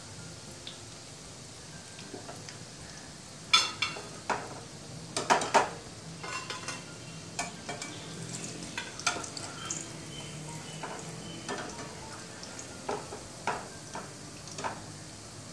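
Idli pieces deep-frying in hot oil in a kadhai, with a steady sizzle. A metal slotted spoon scrapes and clinks against the pan as the crisp, browned pieces are stirred and lifted out, most loudly about four to six seconds in.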